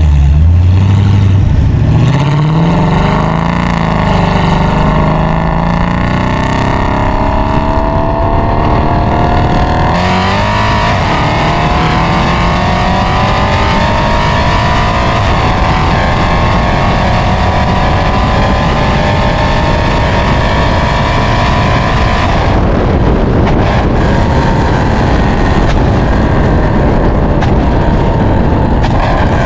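Mercedes C63 AMG (W204) 6.2-litre naturally aspirated M156 V8, catless with long-tube headers, heard close at the exhaust tips. It starts deep and low, then its pitch climbs steadily as the car accelerates. The sound changes abruptly twice, about a third of the way in and again about three quarters through.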